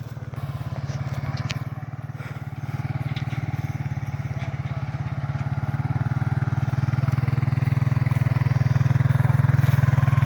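An engine running steadily with a low, even pulse, getting louder over the last few seconds. A few light clicks come in the first three seconds.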